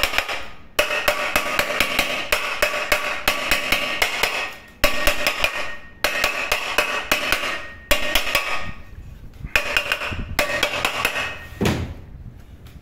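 A small pressure cooker's metal body struck over and over in quick runs of blows, ringing with each hit as it is knocked back into shape after being dented in a fall. There are about five runs of blows, then one duller thud near the end.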